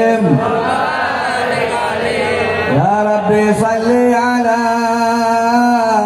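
Men chanting the Arabic salawat verse in a slow, drawn-out melody. For the first three seconds or so several voices waver and overlap, then about three seconds in a single male voice holds one long, steady note.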